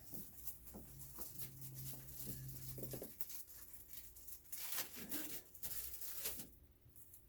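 Light clicks, taps and rustling from hands handling small parts and cables, busier in the second half, with a steady low hum for about two seconds near the start.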